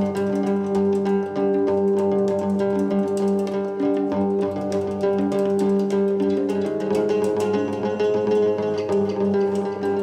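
Live instrumental music from a hang drum and an electric guitar: quick ringing notes over steady held low tones.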